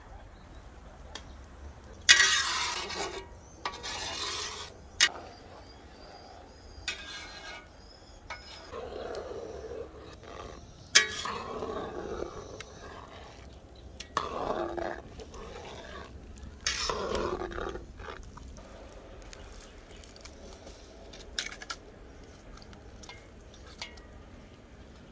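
Metal spatula scraping and clinking against a steel wok while stirring coconut milk that is boiling down into coconut oil: several separate scrapes a few seconds apart, with a few sharp clinks.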